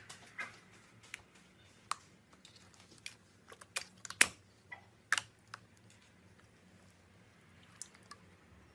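Slime being mixed and squeezed by hand, giving off irregular sharp clicks and pops, the loudest a little past four seconds in, with fewer after about six seconds.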